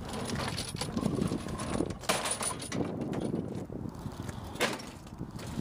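Irregular rattling and knocking over a low rumble, with a sharp click about two seconds in and another about four and a half seconds in.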